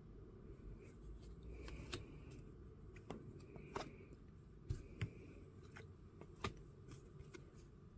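Faint, irregular clicks and soft swishes of glossy Topps Chrome trading cards being slid off a hand-held stack one at a time, over a low room hum.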